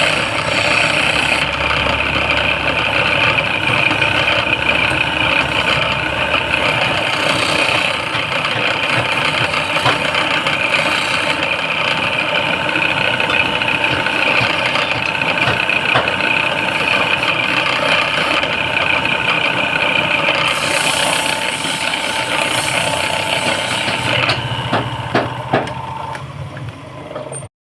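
Wood lathe running steadily with a constant motor whine and the hiss of the spinning work. Near the end it winds down, with a few sharp knocks, before the sound cuts off.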